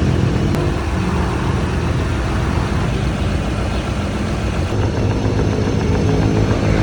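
Fuel-injected Hyundai Accent engine running, settling from a rev to a steady idle in about the first second.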